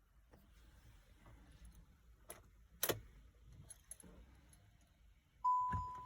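Car keys jangling with a few sharp clicks, then a single electronic warning chime from the VW Touran's instrument cluster near the end, with a low thump just after it starts.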